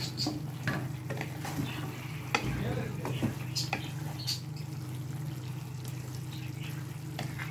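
A spatula stirring spinach in a frying pan: irregular scrapes and clacks against the pan over a soft sizzle, with one sharper knock a little over two seconds in. A steady low hum runs underneath.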